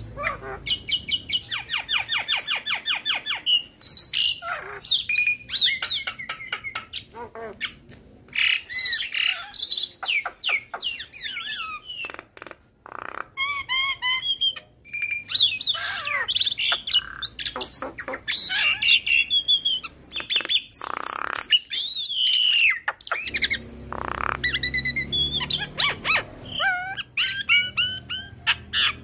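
Javan myna (jalak kebo) singing a long, varied song: a rapid clicking chatter near the start, then sliding whistles, trills and harsh squawks in quick succession, with phrases copied from other birds.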